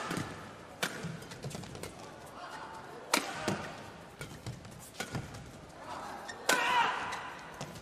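Badminton rackets striking a shuttlecock in a fast doubles rally: sharp cracks every second or two. Near the end the background grows louder.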